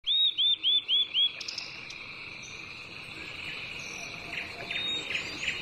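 A bird gives a quick series of five hooked chirps, about four a second, over a steady high insect drone, followed by scattered softer chirps.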